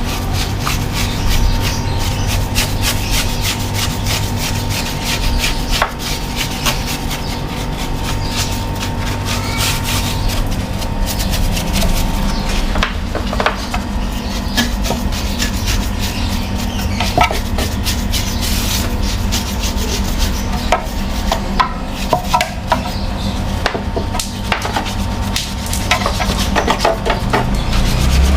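Irregular scraping, rubbing and clicking of hand work on an air conditioner outdoor unit, over a steady mechanical hum.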